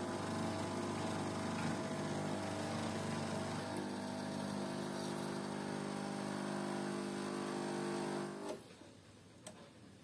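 Espresso machine pump running while it brews two cups, a loud steady mechanical hum that stops suddenly about eight and a half seconds in.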